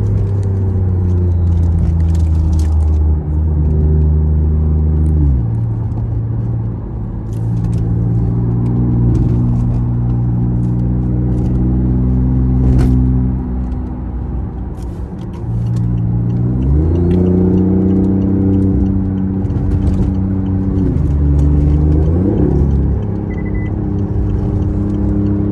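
BMW i8's turbocharged three-cylinder petrol engine pulling at speed with a steady drone. Its pitch drops sharply about five seconds in, climbs again a few seconds past the middle, then dips and rises once more near the end, as it changes gear and comes back on the throttle.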